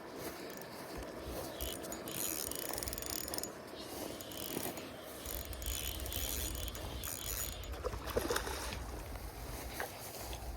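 Fishing reel being worked against a hooked fish, with the reel's mechanism whirring in two spells of a few seconds.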